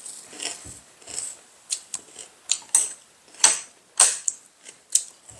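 Chopsticks and spoons clicking and tapping against ceramic bowls and plates while eating: irregular sharp clicks, a few louder ones between about three and five seconds in.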